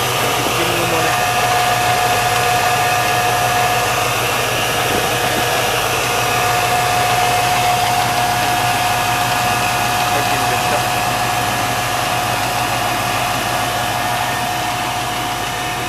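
Pontiac 455 V8 engine idling steadily, with a constant whine over the even running.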